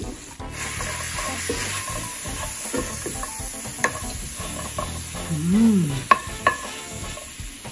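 Lamb chunks sizzling as they brown in an enamelled cast-iron pot, a wooden spoon stirring and scraping them across the pan bottom, with a few sharp clicks of the spoon against the pot. A short rising-and-falling hum sounds a little past halfway.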